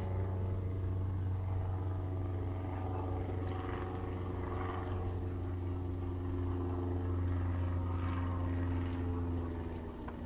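Steady low electrical hum with several fainter tones above it, from a running 1966 Sylvania tube color television. It drops a little in level near the end.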